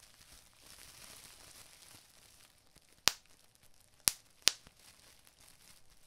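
Plastic bubble wrap crinkling faintly as it is handled, then three bubbles popping with sharp snaps, the second about a second after the first and the third half a second after that.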